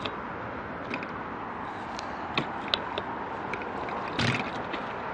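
Steady hum of city traffic with scattered sharp clicks, and a brief louder clattering rattle about four seconds in as a bicycle moves off from a standstill.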